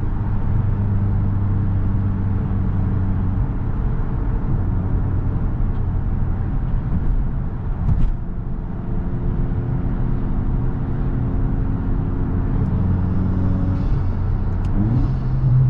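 Tuned VW Mk8 GTI's 2.0-litre turbocharged four-cylinder with an aftermarket cat-back exhaust, holding steady revs while driving. There is one sharp click about halfway through. Near the end the revs rise quickly and the engine gets louder.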